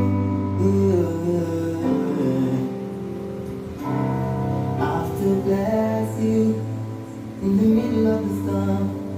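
Worship music: sung melody over plucked guitar, with sustained chords that change every second or two.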